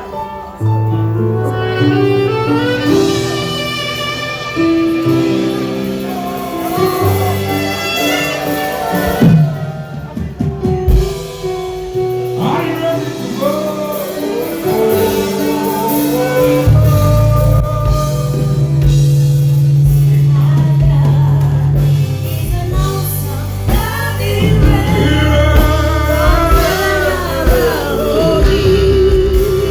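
Live band music played loud through a stage PA during a sound check, with a singer's voice over a steady bass line.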